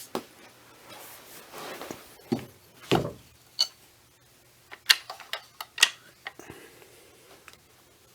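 Handling noise from a bullpup pump shotgun being turned over: scattered clicks and knocks with some rustling. The two sharpest clicks come about five and six seconds in.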